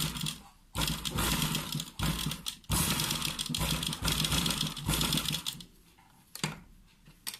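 Sewing machine stitching in short runs, stopping and starting every second or so as the fabric is guided along a curve; it stops about five seconds in.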